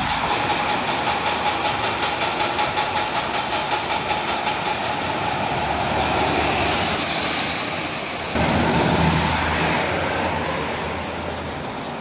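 Single-deck diesel bus running close by. A rapid rhythmic pulsing fills the first few seconds, and a steady high whine runs from about five to ten seconds in.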